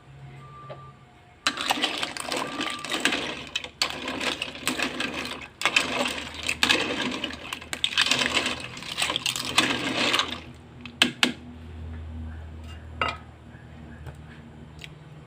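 Lala clam shells clattering and clinking against each other and the metal of the pot or ladle, a rapid rattling in several long bursts that stop about ten seconds in, followed by a few single clicks.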